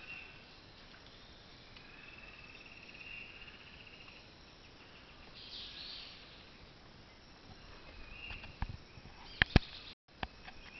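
Rainforest morning ambience: a pulsing insect trill and scattered bird calls over a soft hiss. Two sharp clicks, the loudest sounds, come close together near the end, followed by a brief break in the sound.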